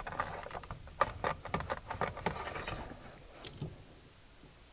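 Light metallic clicks, knocks and scraping as a new Trabant shift lever is fitted into the gearshift linkage by hand. The handling dies away about three seconds in.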